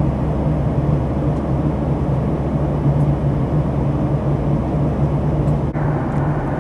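Airliner cabin noise in flight: the steady drone of the jet engines and rushing airflow, with a constant low hum under an even roar.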